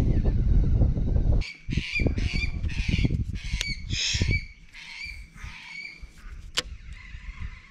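A bird giving a run of harsh squawks, about two a second, fading out after about five seconds. A heavy low rumble on the microphone covers the first second and a half.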